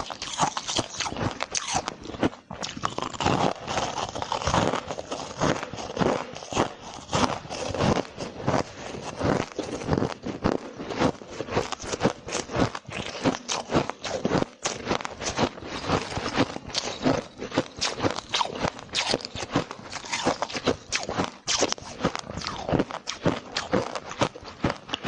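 A person biting and chewing hard frozen ice close to the microphone: a dense, irregular run of sharp cracks and crunches, several a second, as the ice is crushed between the teeth.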